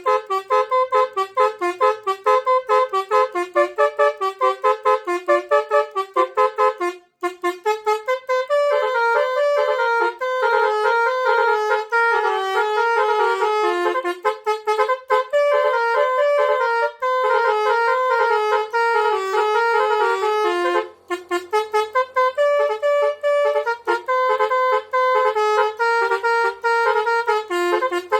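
Telolet horn, a set of electric air-horn trumpets, being tested: it plays a fast tune of short, stepping notes, breaking off briefly about 7 and 21 seconds in.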